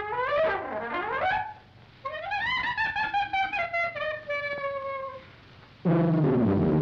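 Jazz-band cartoon score led by a trumpet playing bending, wavering phrases that fall away, with two short pauses. Near the end a loud low brass note comes in and slides down in pitch.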